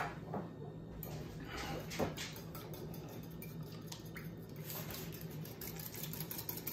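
A couple of sharp knocks of kitchenware on a counter, then from about five seconds in a wire whisk ticking quickly against a glass bowl as a dressing is stirred.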